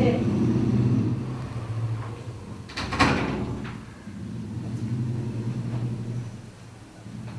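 A motor vehicle's engine running steadily, swelling and easing off, with a door shutting sharply about three seconds in.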